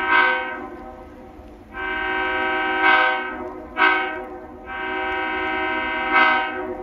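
Diesel locomotive horn (former Maine Central 255, an EMD GP38) sounding four blasts: long, long, short, long. This is the standard grade-crossing warning signal. Each blast trails off in an echo.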